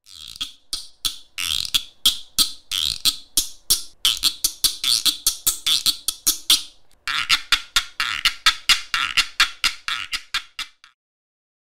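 Wooden xylophone struck rapidly with wooden mallets, a quick run of bright, clicky notes; it pauses briefly about seven seconds in, then plays another fast run that stops about a second before the end.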